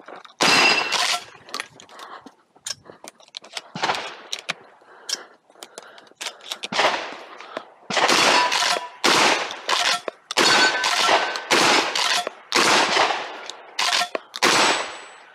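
A Templeton Arms T1000 12-gauge shotgun firing a string of shots at targets. The action is cycled between shots. A few shots come in the first seconds, then a quick run of about eight shots in the second half, each with a short echo.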